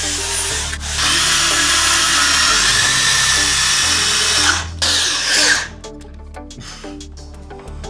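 Corded electric drill driving three-inch screws into a wooden plank on the framing. It runs in two long stretches with a short pause, and its whine slides up and down just before it stops about five and a half seconds in. Background music plays underneath throughout.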